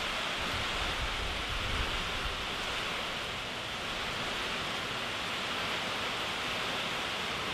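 Heavy rain falling steadily, an even hiss from the tail of a hurricane passing over.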